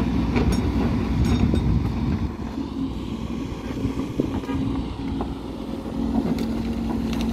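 Hidromek 140LC H4 15-tonne crawler excavator's diesel engine running steadily under working load with a held hydraulic hum, while the bucket digs into rocky ground; scattered knocks and scrapes of stone against the bucket.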